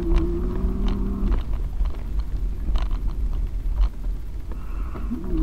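Rumble and buffeting on the microphone from a bicycle ride over a rough, broken forest trail, with scattered knocks and rattles. A steady low hum sounds for the first second or so and again near the end.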